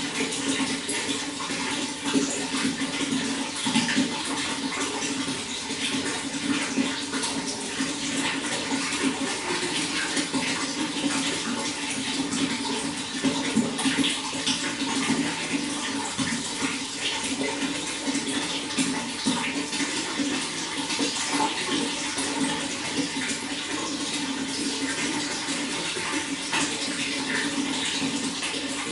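Steady running water, flowing and splashing continuously with many small irregular splashes.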